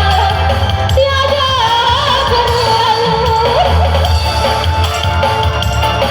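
Loud pop music with a singing voice carrying a wavering melody over a heavy, steady bass line.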